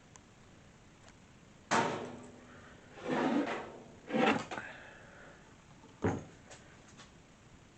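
Wooden boards being handled: a sharp wooden knock about two seconds in, then two short sliding scrapes and a small click near the end.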